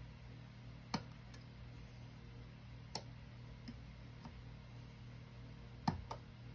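Small metallic clicks and ticks of lock picks working inside a Mul-T-Lock Junior cylinder: a few sharp clicks about a second, three seconds and six seconds in, the last a quick pair, with fainter ticks between. A steady low hum runs underneath.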